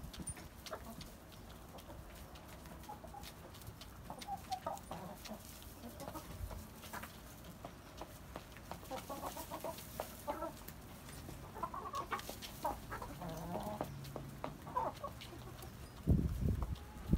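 Chicken clucking in short, repeated calls through the middle of the stretch, with light clicks and scratches. Near the end there is a brief loud low rumble.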